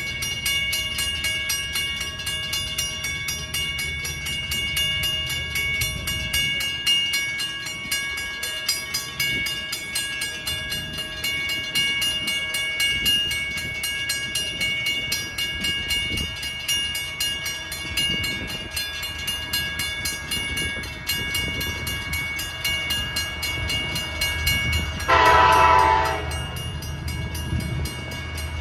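Railroad crossing bell ringing steadily while the crossing signals flash, over a low rumble. About 25 seconds in, the horn of the approaching NYS&W freight locomotive sounds one blast of about a second, its warning for the grade crossing.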